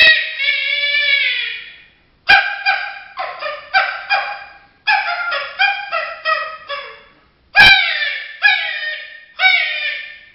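Coyote vocalizations blown on a mouth-held diaphragm predator call: a long howl that drops in pitch at its end, then two quick runs of short yips and barks, then three shorter howls, each falling at the end.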